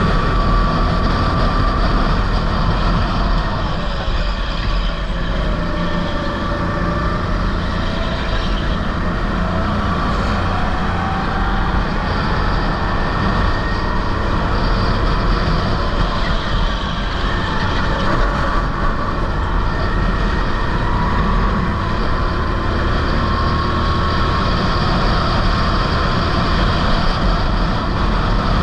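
Sodi rental kart engine running at race pace, heard onboard, its revs rising and falling again and again as the kart goes through the corners.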